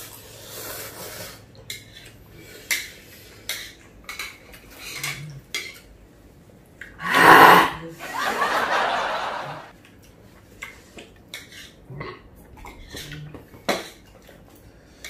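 Chopsticks clicking against ceramic plates and a metal cup while noodles are slurped. About seven seconds in comes a loud burst, then about two seconds of blowing into a tissue: a nose being blown, running from the chili heat.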